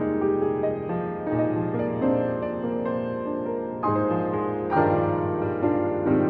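Background piano music, with new notes and chords coming about every second.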